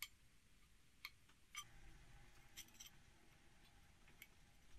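Near silence broken by a handful of faint, sharp metallic clicks: the steel toothing-plane iron and a steel square tapping together as they are handled.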